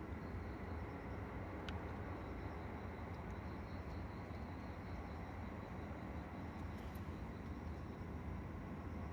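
Steady low background hum and hiss, with a single faint click about a second and a half in.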